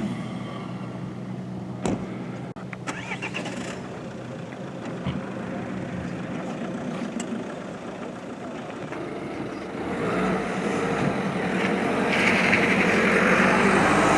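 An engine running steadily, with a few sharp clicks, growing louder and noisier over the last few seconds.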